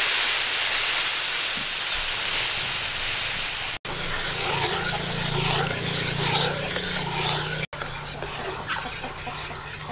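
Milky liquid sizzling and hissing as it is poured into a hot aluminium wok. From about four seconds in it bubbles as it is stirred with a metal ladle, and it is quieter near the end.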